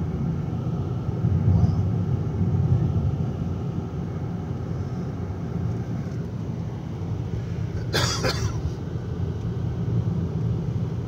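Steady low rumble of a car driving, heard from inside the cabin: engine and tyre road noise. A short rush of noise cuts in about eight seconds in.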